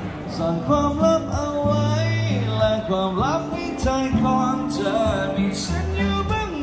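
A man singing and playing acoustic guitar, amplified through a small PA speaker.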